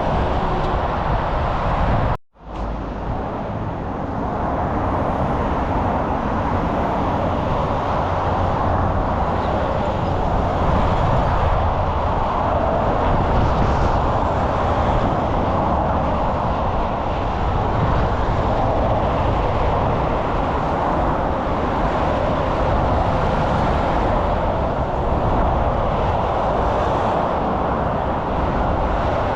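Steady hum of road traffic, a continuous wash of tyre and engine noise. The sound drops out for a split second about two seconds in.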